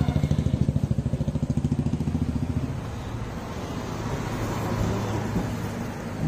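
A small engine idling close by with a rapid, even beat that fades about two and a half seconds in. A steadier engine hum then swells and dies away.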